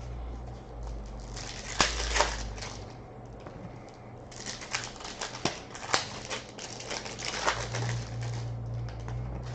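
Trading card pack wrappers being torn open and crinkled and cards shuffled by hand: irregular rustling with several sharp clicks and snaps, over a low steady hum.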